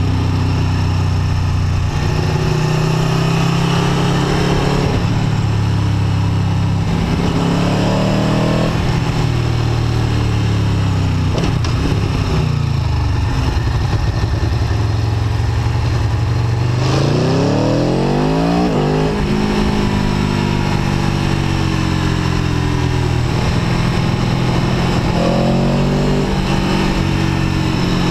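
Aprilia Tuono V4 1100 RR's V4 engine running under way, its note rising and falling with the throttle. About two-thirds of the way through, a long rising rev climbs hard and then drops back.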